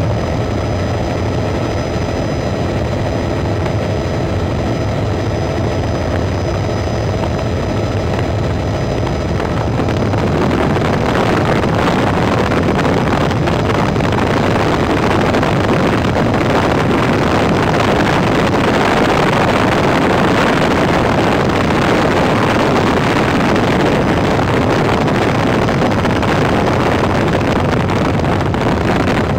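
Helicopter engine and rotor heard from inside the cabin: a steady drone with a high whine. About a third of the way in, a louder rushing noise rises and covers the whine.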